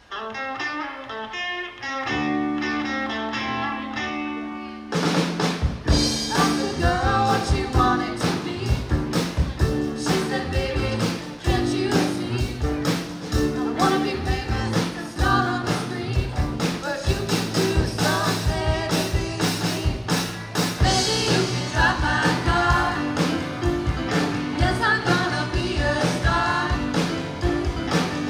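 Live rock band playing: electric guitars and bass open with a few sustained notes, then the drum kit comes in about five seconds in and the full band plays on with singing.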